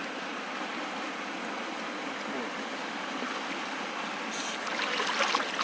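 Mountain stream water running over rocks, a steady rushing. From about four seconds in, a louder crackling, rustling noise comes in on top.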